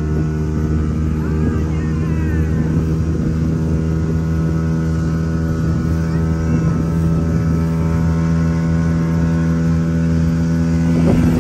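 Outboard motor of a small boat running steadily at cruising speed, a constant even engine tone with no change in pitch.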